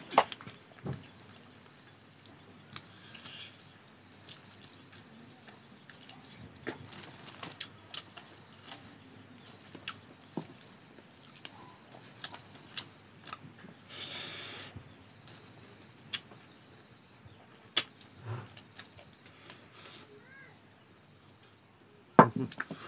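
Close-up eating sounds: chewing, lip smacks and scattered short clicks of fingers and dishes, the sharpest just after the start and near the end. A steady high-pitched insect trill, like crickets, runs underneath.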